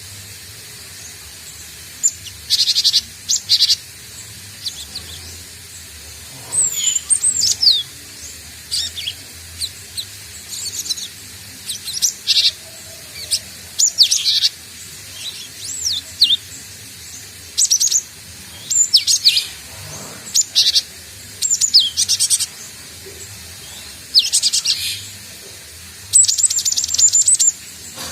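Cinereous tit (gelatik batu) calling in scattered bursts: short high chirps, quick runs of repeated notes and a few falling whistled sweeps, a second or two apart. This is a newly caught young bird still learning its song.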